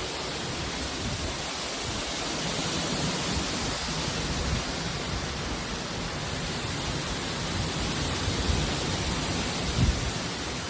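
Storm wind blowing hard and steadily, with low thumps of gusts buffeting the microphone, the strongest near the end.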